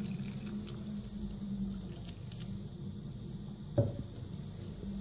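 A cricket chirping steadily in the background, a high-pitched tone pulsing about eight or nine times a second. A single knock sounds about four seconds in.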